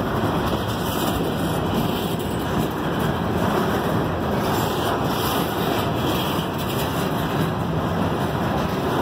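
Covered hopper cars of a freight train rolling past at close range: a steady, even noise of steel wheels on rail, with wind on the microphone.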